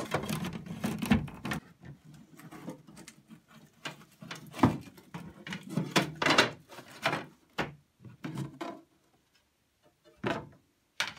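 Wooden tambour door slats knocking and rattling against each other and the cabinet track as they are pulled out by hand, in a run of irregular clacks.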